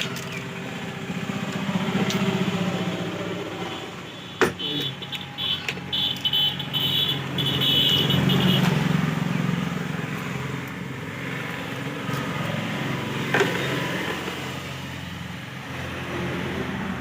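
Road vehicles passing, their engine hum swelling and fading twice, over scattered clicks and taps of hand tools opening a mixer grinder.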